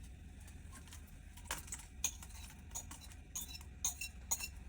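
Light clinks and taps of kitchen utensils against a bowl and frying pan, scattered through the second part, over a faint low hum.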